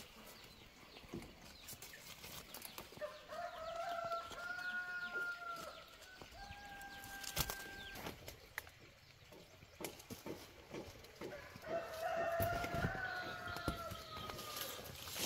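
A rooster crowing twice: long calls about three seconds in and again about halfway through. Underneath, leaves rustle and twigs click and snap as berries are picked by hand from the shrub.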